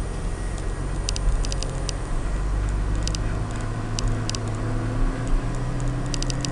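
Diesel engine of a New Holland tractor used as an aircraft pushback tug running steadily inside its cab, its note picking up and rising slightly about two and a half seconds in. Clusters of short sharp clicks come several times.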